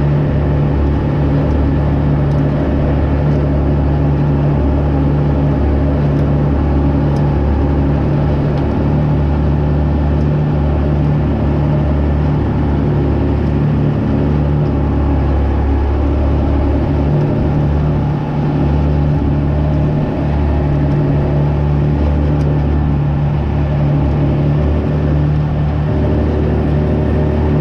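Truck engine running at a steady speed with a constant low drone, wavering briefly about two-thirds of the way through.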